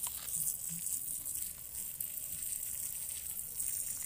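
Steady hiss of a water jet from a hose spraying onto the soil of a potted bonsai, washing the soil away to expose the trunk base.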